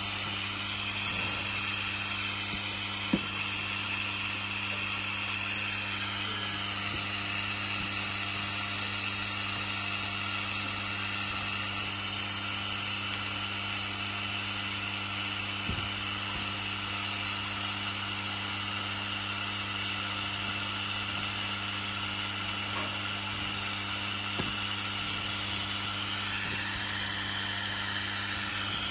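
Steady electric hum and high whine of a running film cutting machine, with a few faint clicks.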